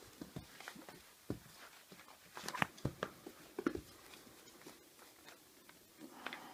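Whippet puppy playing tug with a fabric toy on a wooden floor: scattered light clicks and knocks of paws scrabbling on the boards and the toy being jerked, busiest around the middle.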